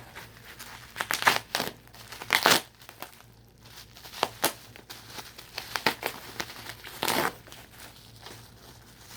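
Packaging being unwrapped by hand: irregular crinkling and tearing rustles with small clicks, coming in clusters and loudest in the first few seconds and again near the end.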